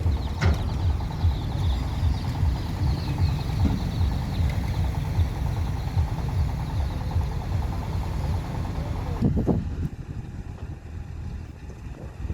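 A large diesel engine of an XCMG mobile crane running steadily with a low, rhythmic pulse. It drops away sharply about three quarters of the way through, leaving quieter wind noise.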